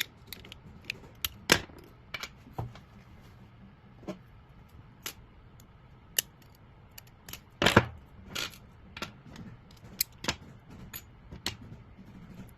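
Irregular small metal clicks and taps from a Hyundai car door lock cylinder being handled and taken apart, with a louder cluster of knocks about two thirds of the way through.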